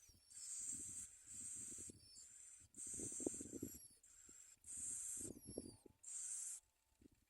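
Common myna giving harsh, hissing rasps, about six bursts of half a second to a second each with short gaps between them, with faint rustling knocks underneath.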